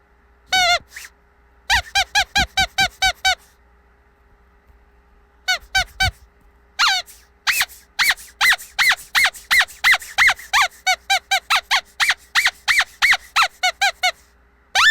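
Squeaky dog toy squeezed over and over. There is a single squeak early, a quick run of about eight squeaks, a pause of about two seconds, then a long run of squeaks at about three or four a second. Each squeak drops in pitch at its end.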